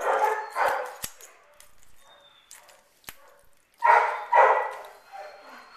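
Airedale terrier barking: a bark at the start, another just after it, and two more close together about four seconds in. Sharp clicks of kitchen shears snipping through raw chicken backs fall between the barks.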